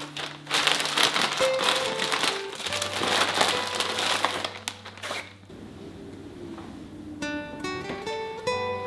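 Plastic and paper flour bags crinkling and rustling as they are handled, over background music with plucked guitar-like notes. The crinkling stops about five seconds in, leaving the music alone.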